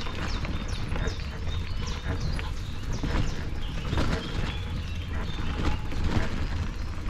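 Footsteps on a path under a steady low rumble, with birds singing short high notes in the background.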